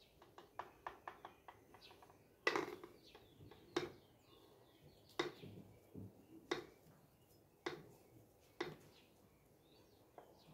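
Faint clicks and short knocks from an electric roti maker while a chapati cooks inside with the lid closed. A cluster of small ticks comes first, then about six louder knocks spaced a second or so apart.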